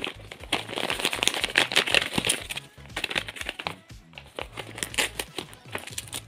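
Clear plastic wrapping crinkling as it is handled and peeled off a paper box, in quick irregular bursts. Background music with a steady bass line runs underneath.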